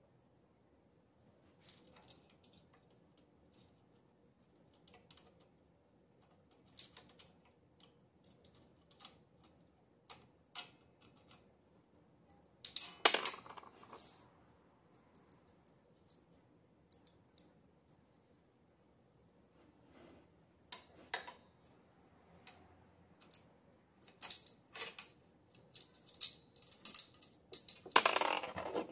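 Small metallic clicks, taps and clinks of hand tools and parts as a dirt bike's rear wheel hub and brake are worked on by hand, coming irregularly. Louder clattering handling noise comes about 13 seconds in and again near the end.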